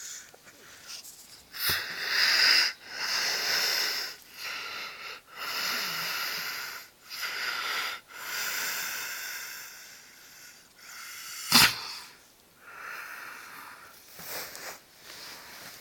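Snoring with wheezy, hissing breaths, one after another about every one to two seconds. A short, sharp, loud sound cuts in about two-thirds of the way through.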